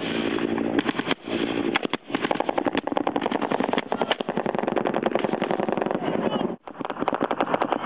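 Sustained, very rapid automatic gunfire, broken off briefly a few times.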